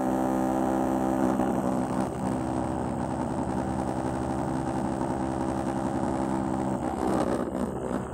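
Small vibration motor spinning a little propeller, powered from a charged capacitor, running with a steady buzz as the wire-legged toy vibrates on cardboard.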